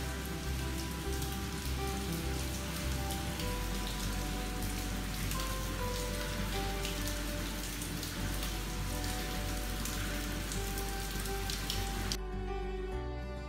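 Steady rain-like spatter of water dripping and trickling in a mine cave, heard over soft background music; the spatter cuts off suddenly near the end, leaving only the music.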